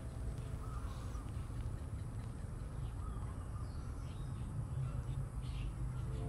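Outdoor ambience: a steady low rumble with a few faint, scattered bird calls.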